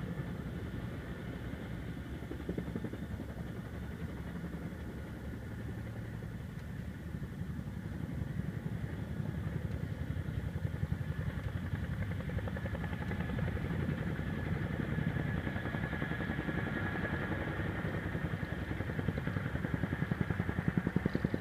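Chinook tandem-rotor helicopter hovering low, its rotors beating in a fast, even thump over a steady high whine. It grows louder in the second half.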